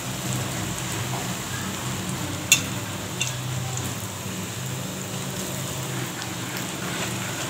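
Soya-chunk and egg bondas deep-frying in hot oil, a steady sizzle. A sharp pop of spitting oil comes about two and a half seconds in, and a smaller one follows soon after.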